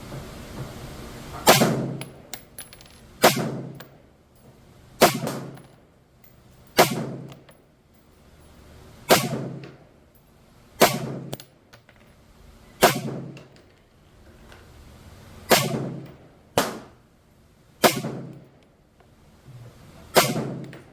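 Centerfire rifle firing a slow string of about ten aimed shots, one roughly every two seconds, each a sharp crack with a short ringing tail: a full 10-round magazine emptied from one position.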